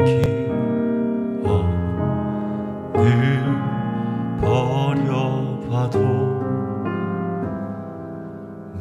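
A male bass voice singing a slow ballad live, with vibrato on held notes, over piano accompaniment.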